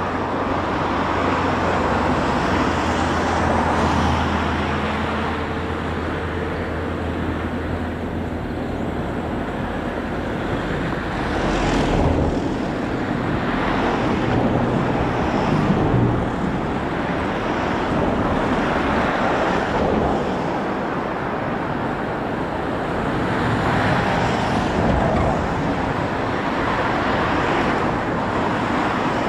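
Road traffic noise, with vehicles swelling past every few seconds.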